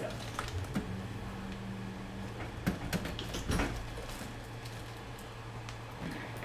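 Scattered clicks and knocks of objects being handled and moved about while someone searches a cluttered workbench, over a steady low hum.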